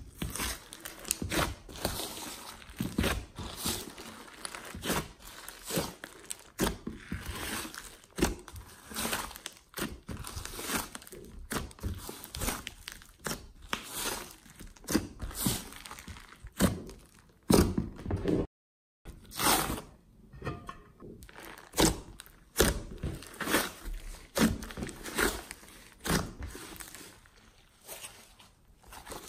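Hands squishing, kneading and stretching a large mass of slime mixed with clay and glitter, making irregular sticky clicks, pops and crackles. The sound drops out completely for about half a second roughly two-thirds of the way through.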